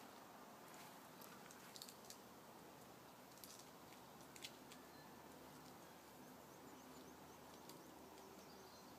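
Near silence: faint background hiss with a few soft high clicks, and a quick run of faint high chirps near the end.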